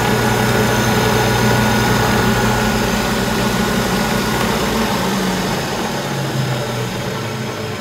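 Stainless-steel sugar grinding mill running with a steady motor hum, then switched off about five seconds in and winding down, the hum falling away and getting quieter.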